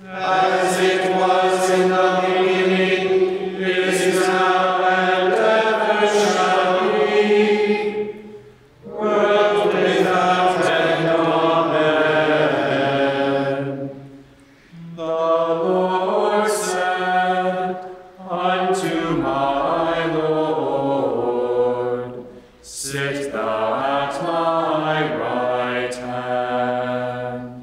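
Gregorian plainsong chanted by a group of voices, in five phrases with a short breath between each.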